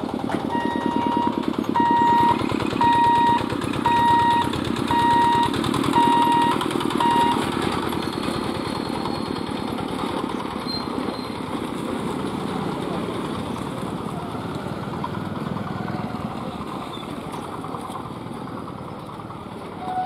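An electronic beep repeats about once a second, seven times in all, over a rapid rattling rumble. It then gives way to a quieter, steady hum of road traffic and bicycles crossing the tracks.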